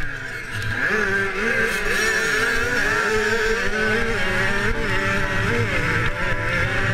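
Motocross bike engine heard from an onboard camera, running hard, its pitch rising and falling over and over with throttle and gear changes.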